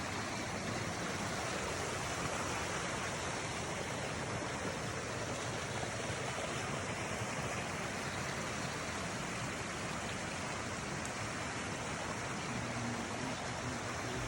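Steady rush of water running over rocks in a stream, an even hiss without a break.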